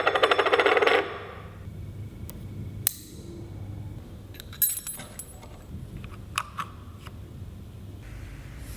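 A loud, rapidly pulsing buzz that cuts off about a second in, then a few sharp, separate metallic clicks and clinks of a metal camera lens being handled.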